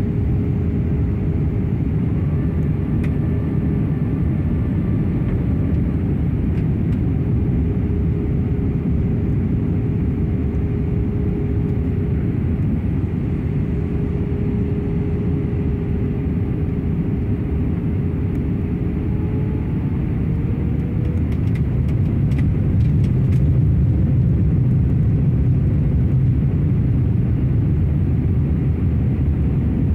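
Airbus A320 cabin noise on approach: the steady rush of the engines and airflow heard inside the cabin. A faint steady hum rises slightly in pitch about twenty seconds in, and the noise grows a little louder soon after.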